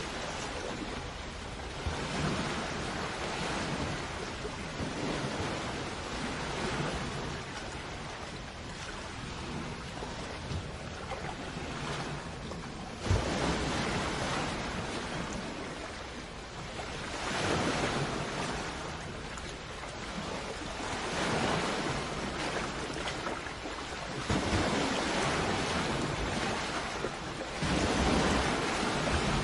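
Ocean waves washing in, the surf swelling and easing every few seconds, with one sharp click about halfway through.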